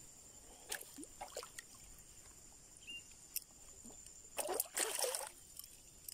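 Water splashing in shallow, muddy floodwater among grass: a couple of short splashes, then a longer, louder bout of splashing about four and a half seconds in.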